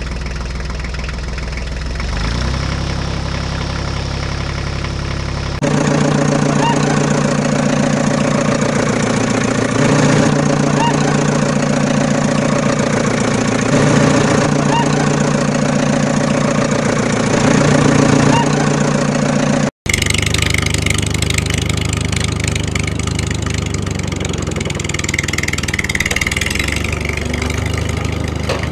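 Tractor engine sound running steadily at idle with a regular pulsing beat. It changes abruptly about six seconds in and again about twenty seconds in, with a split-second dropout just before the second change.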